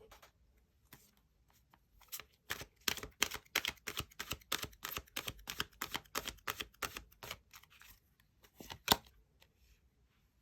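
Tarot cards being shuffled by hand: a quick run of crisp card snaps and flicks starting about two seconds in, then a few more near the end with one sharper slap.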